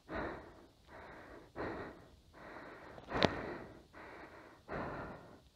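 A person breathing hard: a steady run of loud, noisy breaths, about one every three quarters of a second, with one sharp click about three seconds in.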